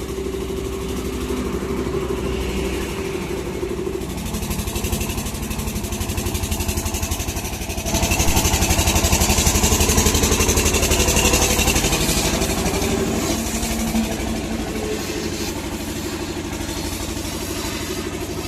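An engine running steadily with an even fine rhythm, getting louder for a few seconds in the middle with a hiss over it, then settling back.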